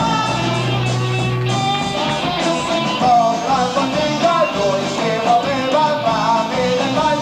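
Italian progressive rock band playing live on a 1994 amateur tape recording. The full band plays with electric guitar, a held low bass note near the start, and a wavering melody line from about halfway in.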